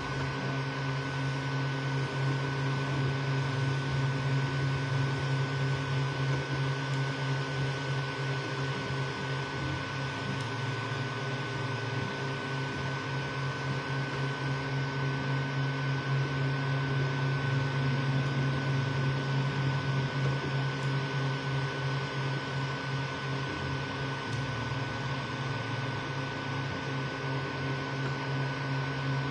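Creality Ender 3 V2 3D printer running mid-print: a steady hum and whir from its fans and stepper motors, with a constant high tone over it.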